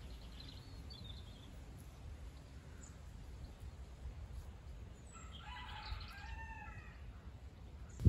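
A rooster crowing once, faint, for about two seconds starting around five seconds in. A small bird gives a brief high chirp near the start.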